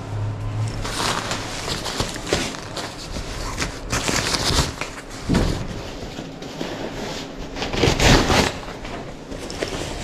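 Rustling and knocking of folding moon-style camping chairs being handled and set out, the louder rustles coming about a second in, near the middle and near the end.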